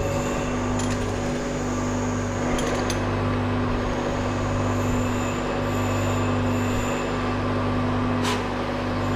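Lathe running steadily with a constant machine hum, a few sharp clicks breaking in.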